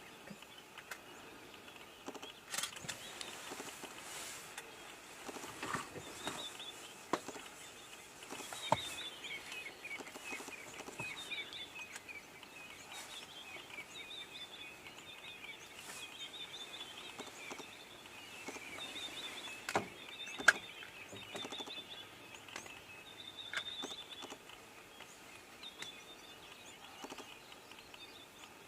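Quiet bush ambience with many small birds chirping and calling throughout, and a few sharp clicks or knocks scattered through, the loudest about two-thirds of the way in.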